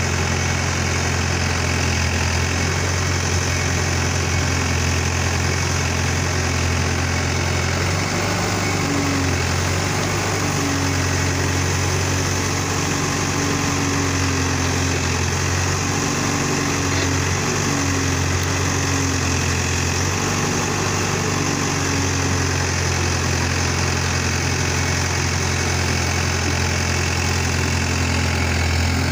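Case 770EX backhoe loader's diesel engine running steadily as the backhoe digs. Its note shifts and wavers through the middle stretch, from about eight seconds in to about twenty-two seconds in, then settles back to an even hum.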